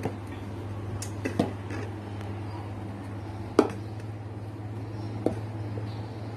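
A few light clicks and taps of a spoon against a plate and containers as flour and salt are spooned out, the sharpest about three and a half seconds in, over a steady low hum.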